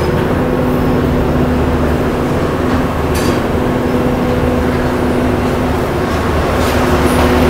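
Large dairy-barn ventilation fans running: a steady mechanical hum with a low drone and a few constant tones, and no change in pitch.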